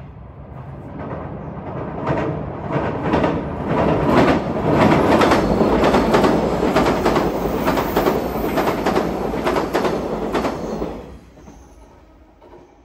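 381-series electric limited express train crossing a steel girder bridge. A rumble builds over about two seconds, then a rhythmic clatter of wheels over the rail joints runs while the cars pass, fading out about eleven seconds in.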